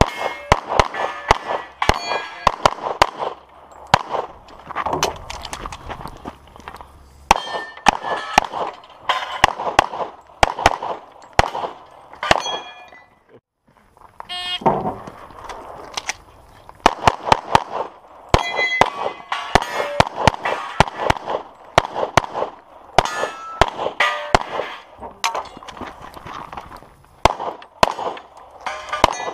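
Pistol shots fired in quick strings, with steel targets clanging and ringing as they are hit; a brief pause about halfway through.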